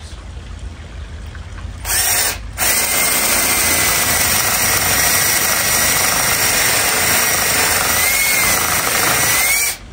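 Cordless drill boring a hole into an aspen log round: a short burst about two seconds in, a brief pause, then a steady whining run of about seven seconds that stops just before the end.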